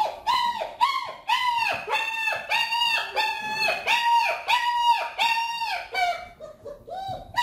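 Puppy whining in a rapid string of short, high yelps, about three a second, each call rising then falling in pitch; the calls grow weaker near the end.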